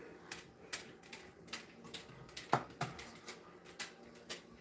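Metal spoon clicking and scraping against a stainless steel mixing bowl while scooping out cheese filling for stuffed shells: a string of light, irregular taps, with one louder clink about two and a half seconds in.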